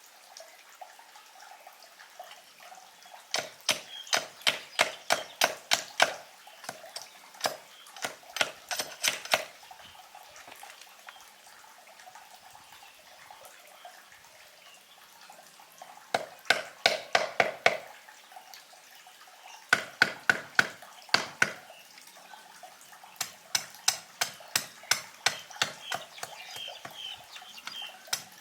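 A blade chopping at wood in quick runs of short, sharp strokes, about four a second, with pauses of a few seconds between the runs.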